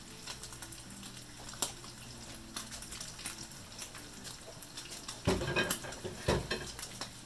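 Tuna steak frying in olive oil in a hot flat pan: a steady sizzle with small crackles. Two louder clunks of cookware come about five and six seconds in.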